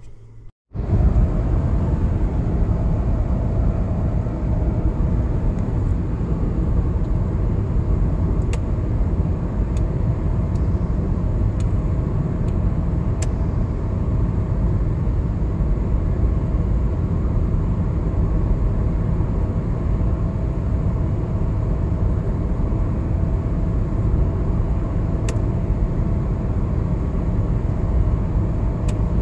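Steady road noise inside a moving car on a highway: tyre and engine noise, heaviest in the low end. It starts abruptly about a second in.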